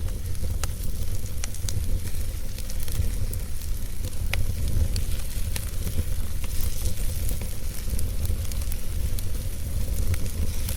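Wood fire burning: steady hiss with irregular sharp crackles and pops of burning wood, over a steady low rumble.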